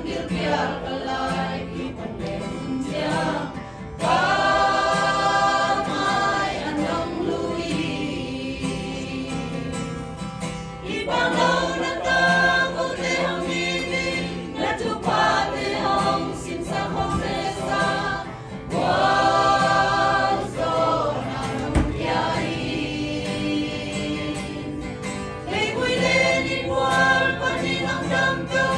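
A small mixed choir of men and women singing a hymn together, with an acoustic guitar strummed along. The singing goes in phrases of long held notes, with a fresh, louder phrase starting about every seven seconds.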